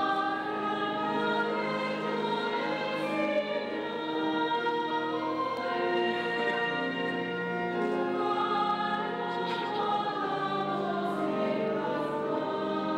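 Choral music: a choir singing slow, long-held notes.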